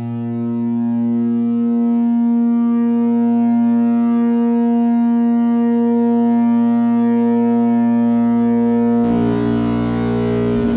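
Analog modular synthesizer drone through a Noise of Antimatter Subshaper subharmonic generator, its channels slowly modulated by three LFOs and sent into reverb. It is a steady pitched drone with a lower subharmonic beneath it, and its overtones slowly swell and fade. About nine seconds in, the tone turns denser and buzzier as lower subharmonics come in.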